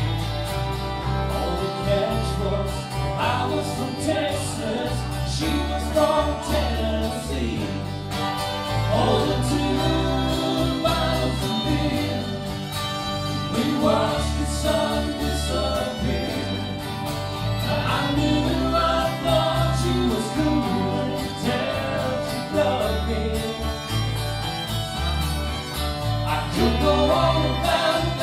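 A country band playing live: sung vocals over guitars and a steady bass line.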